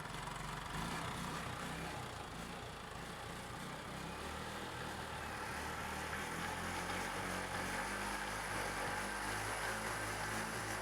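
TVS XL100 BS6 moped's single-cylinder fuel-injected engine running steadily, having started once its fuel pump motor was overhauled.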